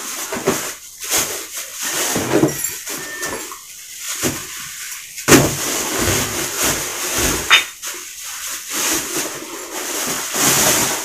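Plastic wrapping rustling and crinkling in irregular bursts as a package is unwrapped by hand, with one sharp knock about five seconds in.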